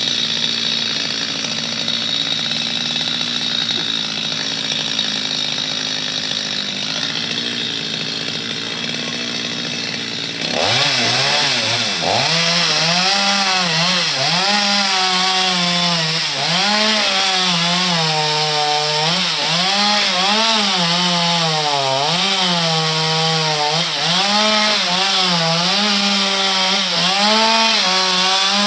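Two-stroke chainsaw cutting into mango wood. About a third of the way in the sound changes abruptly to a clearer engine note that keeps dipping and rising in pitch every second or two as the chain bites into the cut.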